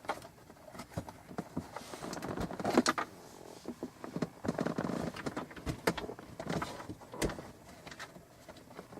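Hands working at plastic interior console trim in a 4th-gen Camaro: scattered clicks, knocks and rustling as the panel is handled and probed for its fasteners.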